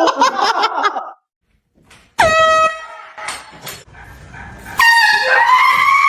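Two loud air horn blasts. The first starts about two seconds in, dips in pitch right after it sounds and fades within a second. The second, longer blast starts about five seconds in and is still sounding at the end. In the first second there is a brief wavering cry.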